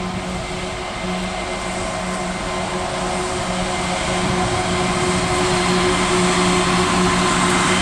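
Diesel-electric freight locomotive hauling a coal train, its engine making a steady, pitched drone that grows louder as it approaches.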